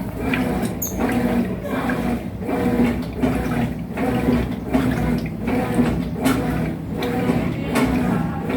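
Washing machine running its wash cycle: the motor hums and the water and clothes churn in a steady back-and-forth rhythm, swelling about every two-thirds of a second.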